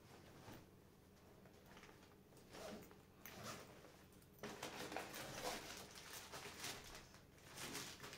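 Faint rustling and scraping of a backpack being rummaged through, quiet at first and busier and louder from about halfway in.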